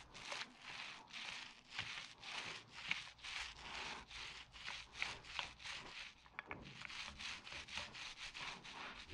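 Paint roller loaded with emulsion paint rolled back and forth over rough concrete: a rhythmic rubbing of about three strokes a second, with a short pause about six seconds in.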